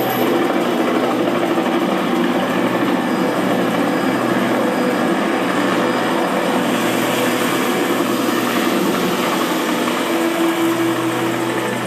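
A film action soundtrack in Dolby Digital, played through a Zebronics Juke Bar 9700 soundbar and recorded on a phone. It holds a steady engine-like rumble with little deep bass.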